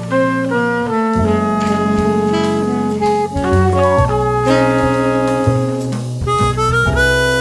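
Jazz septet playing an ensemble passage: trumpet, chromatic harmonica, alto and tenor saxophones sounding long notes together in harmony, changing chord every half second or so, over piano, upright bass and drums.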